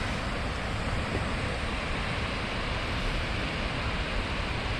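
Skógafoss waterfall's falling water rushing steadily, a dense, even noise that does not change.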